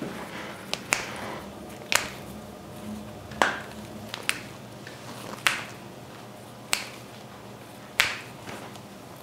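Joints of a hand cracking as a chiropractor pulls and manipulates the fingers and wrist: a series of about eight short, sharp pops, one every second or so.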